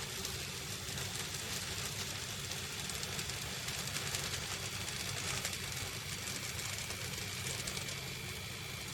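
N gauge model trains running on the layout: a steady small-motor hum with a hiss of wheels on the rails, and a thin high whine coming in about halfway through.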